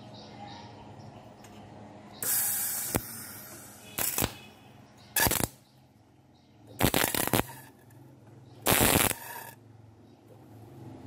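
Wire-feed (MIG) welder tack-welding a steel bushing onto a tube suspension arm: the arc runs in five short bursts, each under a second, with pauses between them, the first about two seconds in and the longest.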